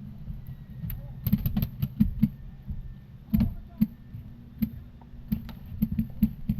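A run of irregular knocks and thumps, several a second, over a low steady rumble.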